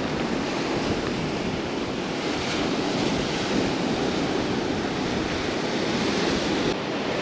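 Surf washing onto a sandy beach in a steady, unbroken rush, with wind rumbling on the microphone.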